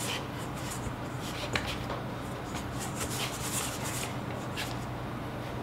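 Hands kneading a firm flour dumpling dough in a stainless steel bowl: soft rubbing, pressing and scuffing of dough against the bowl, with one brief tap about one and a half seconds in.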